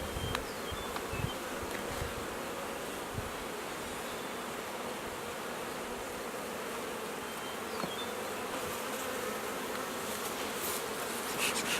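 Honey bees buzzing around an open hive in a steady, dense hum. A few soft knocks come in the first few seconds.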